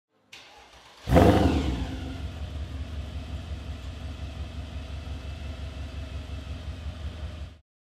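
Mercedes-Benz CLK63 AMG Black Series' supercharged 6.2-litre V8 with a custom exhaust starting up: it fires about a second in with a loud flare that settles into a steady idle. The sound cuts off abruptly near the end.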